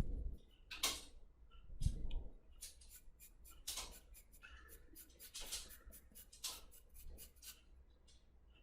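Drawing tool scratching quick, short strokes on sketchbook paper, several a second, while hatching feather detail.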